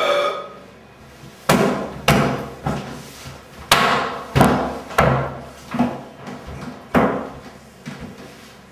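A series of about eight hard knocks or bangs at uneven intervals, each ringing out briefly.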